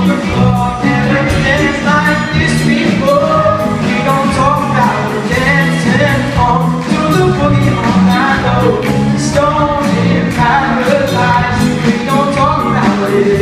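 Live band playing a folk-pop song: guitars, bass and drum kit with a steady beat, a melody line carried over the top.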